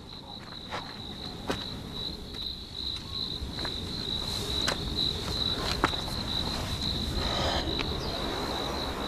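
An insect trilling steadily at one high pitch, with a few sharp clicks and a low rumble beneath it.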